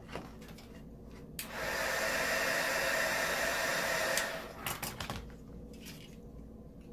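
Heat gun switched on with a click, blowing steadily for about three seconds, then switched off, as it warms the vinyl wrap so it can be stretched. A few faint clicks of handling follow.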